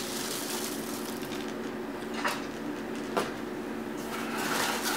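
Cardboard shipping carton and foam packing peanuts being handled as a boxed model is lifted out: soft rustling with two light knocks, over a steady low hum.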